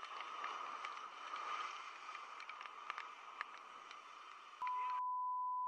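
Rough sea surf washing over rocks, a steady rushing noise with scattered small clicks. Near the end a loud, steady electronic beep at one pitch comes in, and the surf sound cuts out.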